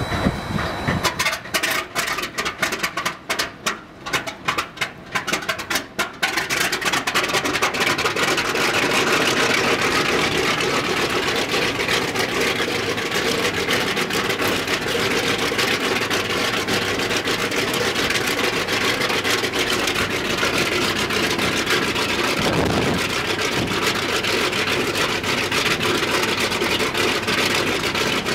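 Il-14T's left Shvetsov ASh-82T radial piston engine firing unevenly for about the first six seconds, then settling into steady running.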